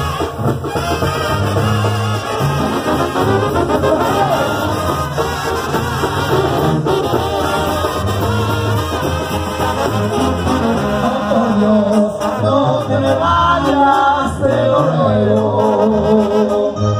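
Mexican banda brass band playing live: trumpets and trombones carry the melody over a steady low bass line.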